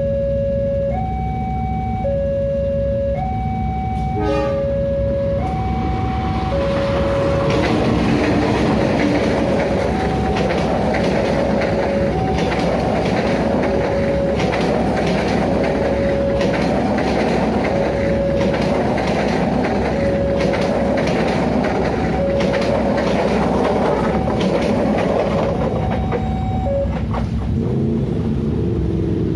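A level-crossing warning alarm sounds, switching between two tones about once a second. From about seven seconds in, a diesel-hauled local passenger train rolls across the crossing with a steady rumble of wheels on rails. The alarm keeps going under the train until near the end.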